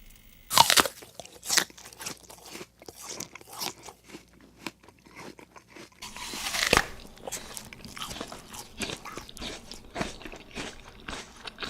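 Irregular crisp crunches and clicks, with a louder, longer crunch about six and a half seconds in.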